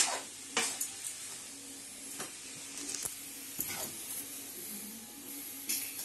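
Spatula stirring and scraping potatoes and fenugreek in a kadhai on a gas flame. Scattered sharp scrapes and clinks of the spatula against the pan sound over a faint frying sizzle.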